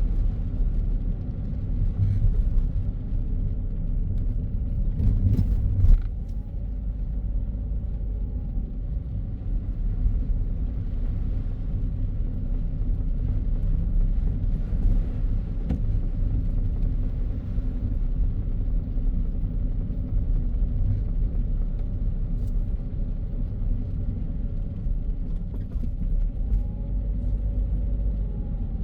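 A car driving on the road, a steady low rumble of tyres and engine. A few sharp clicks come about five to six seconds in.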